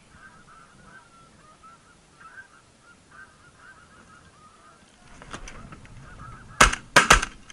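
A flock of snow geese calls in the distance with a steady high chatter of honks. Near the end, two loud, sharp shotgun blasts come about half a second apart.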